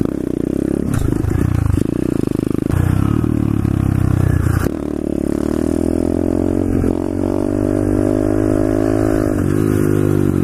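SSR 125cc pit bike's single-cylinder four-stroke engine running under throttle as the bike accelerates. The revs rise and fall unevenly at first, then from about halfway the engine note climbs steadily, dipping briefly near the end.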